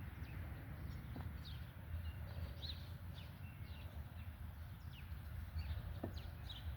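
Small birds chirping, with short high calls scattered throughout, over a steady low rumble, with a couple of faint knocks.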